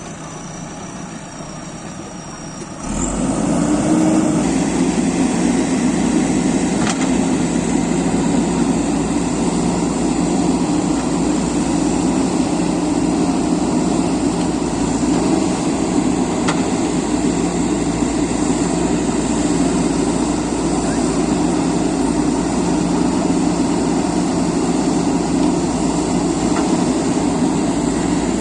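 JCB 3DX backhoe loader's diesel engine running. It gets much louder about three seconds in, then runs steadily.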